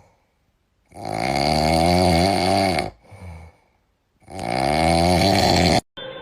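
Loud snoring from a pet: two long snores, each about two seconds, with a short silent pause between them.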